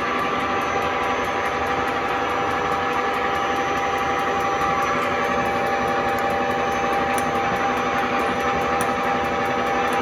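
Milling machine running steadily: a constant mechanical hum with several steady tones and no change in speed.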